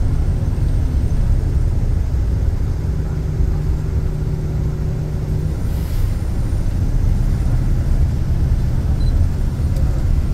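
Steady low rumble of a moving vehicle's engine and tyres, heard from inside the cabin, with an engine hum standing out for a few seconds in the middle.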